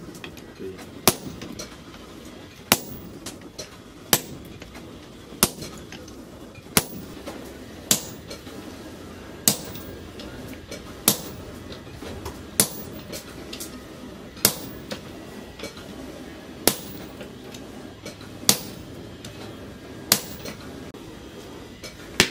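Sledgehammer blows on red-hot leaf-spring steel held in tongs on an anvil: hand forging with a striker, a sharp strike landing in a steady rhythm about once every one and a half seconds, fourteen or so in all.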